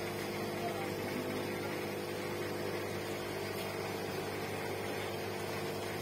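Steady low electric hum with several held tones, unchanging throughout.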